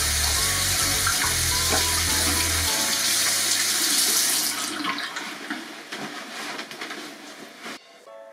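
Bathroom sink faucet running as hands are rinsed under it, shutting off about four and a half seconds in.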